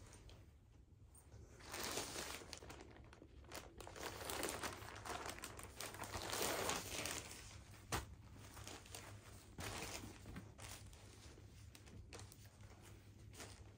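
Clear plastic garment bag crinkling and rustling as it is handled and opened to take out a knit set. The rustling swells over several seconds, and a single sharp click comes about eight seconds in.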